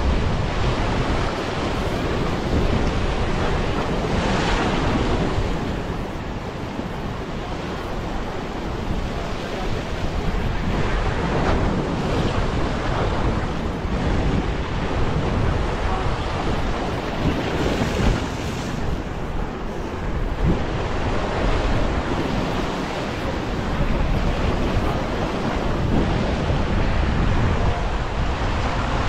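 Ocean surf breaking and washing over a rock ledge, swelling louder every several seconds as each wave comes in.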